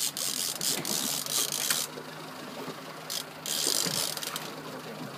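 Conventional big-game fishing reel ratcheting in rapid clicks as line is worked on a hooked fish, in two spells with a short lull about two seconds in.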